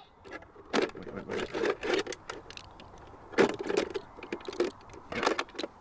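Scattered metallic clicks and rattles from a Vickers machine gun being loaded by hand, its webbing ammunition belt of cartridges drawn through the feed. No shots are fired.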